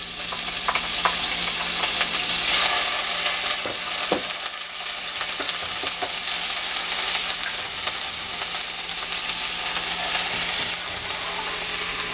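Ginger-garlic paste frying in hot butter in a pot, sizzling steadily while a wooden spoon stirs it, with a few light knocks of the spoon against the pot in the first few seconds.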